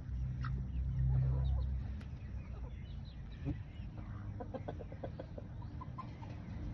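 A bird gives a quick run of short clucking calls about four seconds in, over a low rumble that is strongest in the first two seconds.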